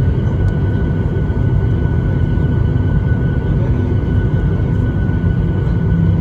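Airliner jet engine running, heard from inside the cabin: a steady low rumble with a steady high whine over it.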